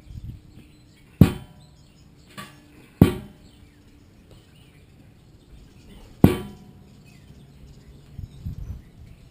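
Three sharp knocks, about a second, three seconds and six seconds in, each with a short ringing tail, with a softer knock between the first two and a few light knocks near the end.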